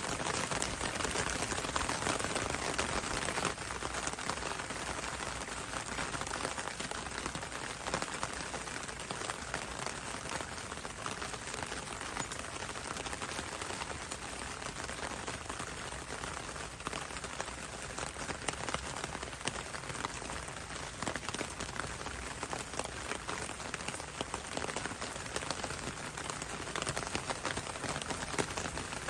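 Steady rain falling: an even hiss with the fine patter of individual drops.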